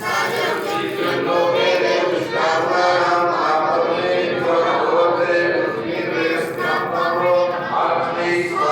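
Several voices chanting together in a continuous devotional chant.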